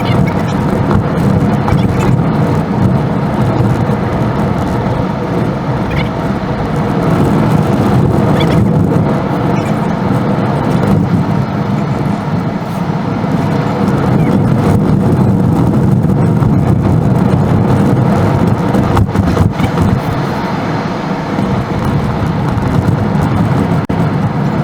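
Steady car driving noise, a loud continuous rumble without clear breaks.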